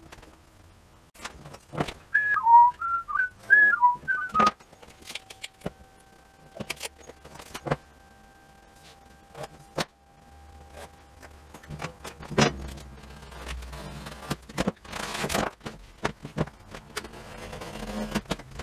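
A man whistles a short, wavering tune, then a metal drywall T-square and pencil knock and click against a gypsum board. Near the end a utility knife rasps along the board as it scores the paper face.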